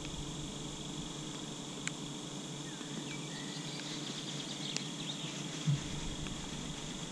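A tobacco pipe being lit with a match and puffed, giving a few faint clicks and a soft low thump about six seconds in, over a steady high-pitched hiss.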